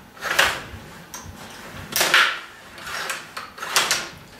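Table hockey rods being pushed and turned and the puck being struck, passed from the right winger to the center and received: four short clattering sounds, the second the loudest.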